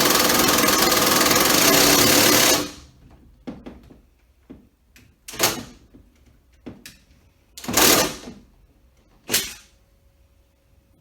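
Cordless impact driver driving a screw, hammering steadily for about two and a half seconds and then stopping, followed by three short bursts as the screw is run tighter.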